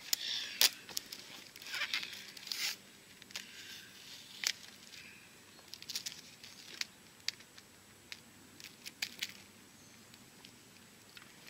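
Rustling and crinkling with scattered sharp clicks as tape is pulled and wrapped around a pine trunk and feet shift on dry pine needles. The sounds are busiest in the first few seconds and thin out toward the end.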